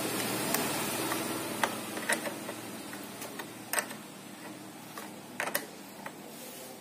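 Sharp metallic clicks of a 10 mm combination wrench working the nut on a car battery's negative terminal as it is loosened, a few clicks scattered over several seconds. A low steady hum runs underneath and slowly fades.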